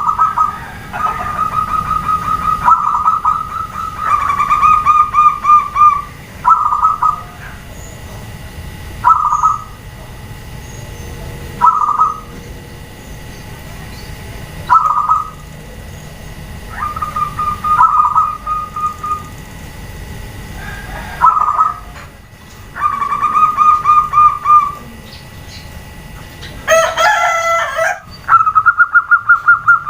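Zebra doves (perkutut) cooing: short pitched coos repeated every few seconds, some drawn out into fast pulsing trills lasting a second or two, the birds calling back and forth. A brief, louder and harsher call cuts in near the end.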